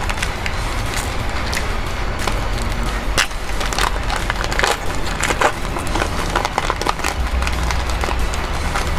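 Foil booster pack wrapper crinkling and tearing as it is pulled open by hand, a run of sharp crackles and rustles, over a steady low rumble.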